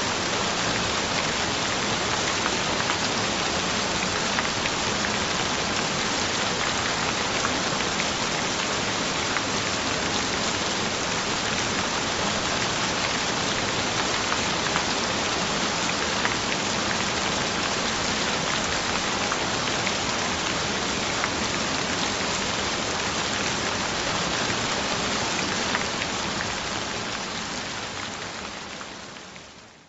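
Steady rain falling on a surface, with fine individual drop ticks; it fades out over the last few seconds.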